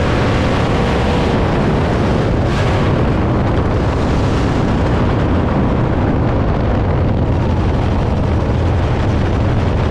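Engine of a 305 winged dirt sprint car, a 305 cubic-inch V8, running loud and steady at racing speed, heard from inside the cockpit.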